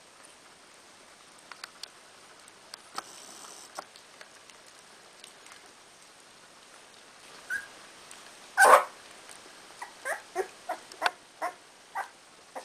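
Eighteen-day-old Cardigan Welsh Corgi puppies whimpering and squeaking: after a few faint rustles and clicks, one loud cry comes about two-thirds of the way in, followed by a quick run of about seven short squeaks.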